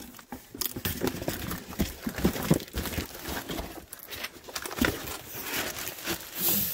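Plastic wrapping crinkling and cardboard boxes being handled, with irregular light knocks and rustles.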